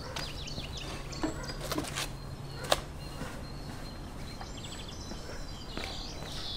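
Small birds chirping over footsteps on paving, with a few knocks as a small wooden barrel is lifted and handled; the sharpest knock comes nearly three seconds in.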